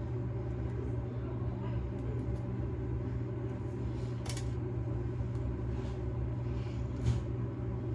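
A steady low hum from a running motor or appliance, with a few light clicks and taps, one about four seconds in and one near the end.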